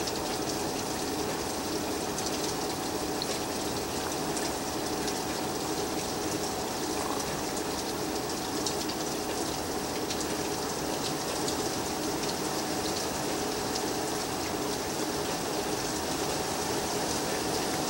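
Steady rain falling outside a screened window, with scattered sharp drip ticks over a constant low hum.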